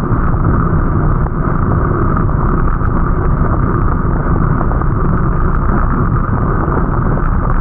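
Steady, loud low rumble of wind buffeting the microphone, with no clear events in it.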